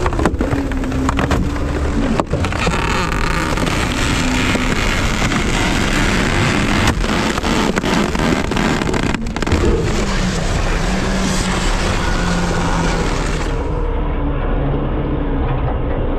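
Front-load garbage truck's diesel engine running, its pitch rising and falling, under a dense rattling hiss with several sharp knocks. The hiss drops away about three-quarters of the way through.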